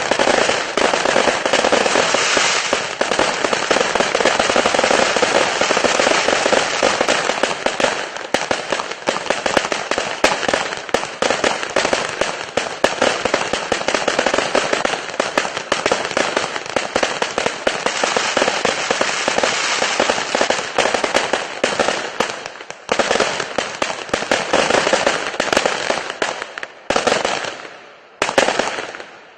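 A 0.8-inch, 1000-shot fireworks cake firing in a dense, continuous rapid stream of shots that thins out to scattered separate bursts in the last couple of seconds.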